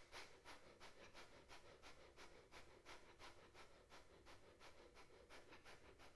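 Kapalbhati breathing: quick, forceful exhalations through the nose in an even rhythm, about three a second, faint.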